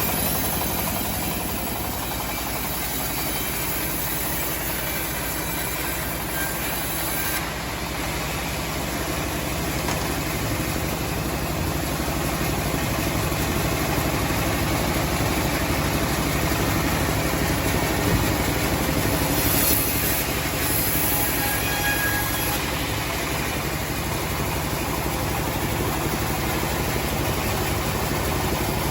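Homemade sawmill running steadily, its motor giving an even, unbroken mechanical drone.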